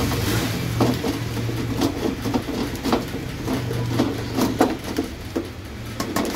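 A block of cheese rubbed down a stainless steel box grater in repeated short rasping strokes, about one or two a second, over a low steady hum.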